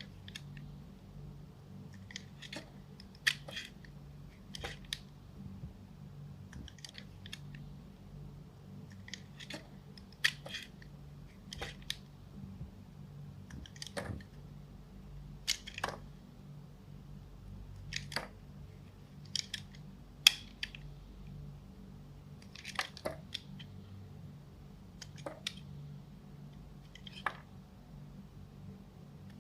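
A knife cutting through a bar of soap: short, crisp crunching cuts every one to two seconds, some as quick double or triple crackles. A faint steady hum runs underneath.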